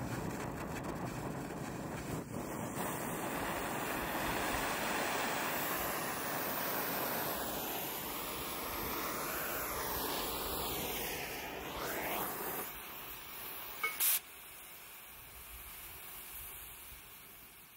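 Gas torch flame burning on steel channel, a steady rushing hiss. It drops in level about thirteen seconds in, a sharp click follows a second later, and the sound then fades out.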